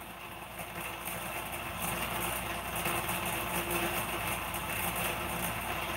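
A steady background hum and hiss, like a small motor or fan running, with no sudden sounds.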